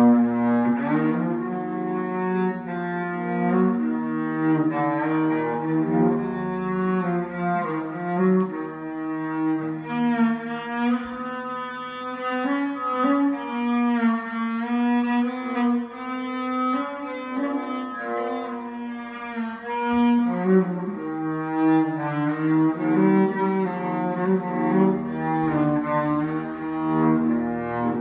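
Solo cello bowed through a 3D-printed plastic bridge hot-glued to the belly, playing a melody of long held notes with vibrato in places.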